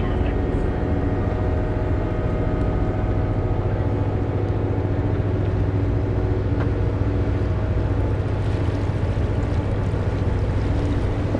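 Canal tour boat's engine running at a steady cruise, an even low drone with a constant hum.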